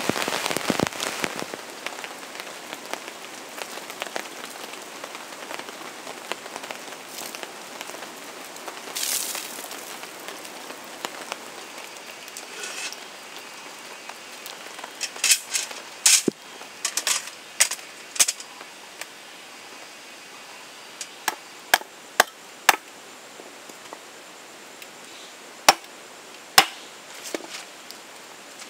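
Steady rain falling, heaviest for the first couple of seconds. From about halfway on come sharp wooden knocks, singly or in quick clusters, of wood being chopped to start a campfire.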